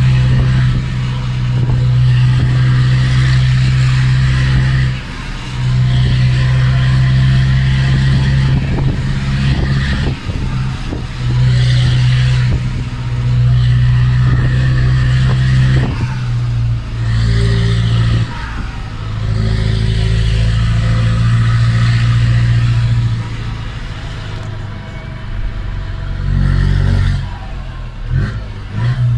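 Mercedes-Benz Atego 1017 truck's turbodiesel engine pulling under load, heard from inside the cab, with the turbo whistling as it spools up. The engine note drops away briefly several times and then comes back.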